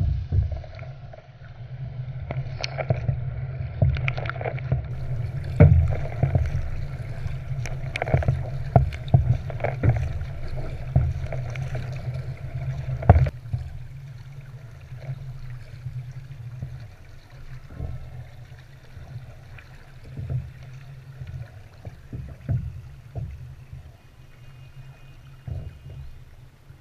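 Water splashing and rushing against an Epic V8 Ultra surfski's hull as it is paddled, with irregular knocks from paddle strokes and spray over a steady low rumble. It is rough and busy at first, with one sharp loud hit about thirteen seconds in, then turns calmer and quieter as the boat glides through flat water.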